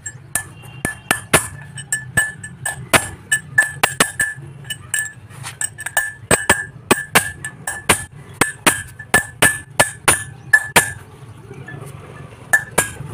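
Hammer striking a steel drift to drive a new tapered roller bearing race (cone) into a Tata Sumo Victa's disc-brake wheel hub: a long run of sharp metallic blows, about three a second, each with a ringing after-tone. The blows pause about 11 seconds in, then come twice more near the end.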